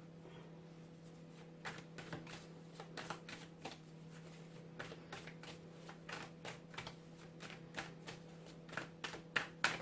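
A tarot deck being shuffled by hand: a run of irregular soft snaps and flicks of cards, busier and louder near the end, over a steady low hum.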